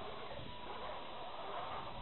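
Electric motors and gearboxes of two RC scale crawler trucks whining as they climb steep rock, the pitch and level swelling and easing with the throttle.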